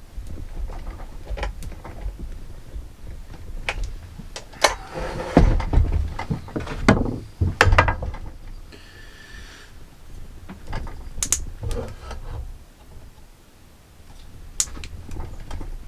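Handling noises of a chainsaw bar and tools on a workbench: scattered knocks and clinks of metal, with a stretch of scraping near the middle and a brief hiss about nine seconds in.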